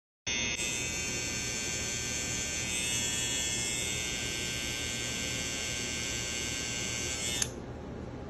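Cordless hair trimmer buzzing steadily at a high pitch, held at the lip, then switched off about seven seconds in, leaving a faint hiss.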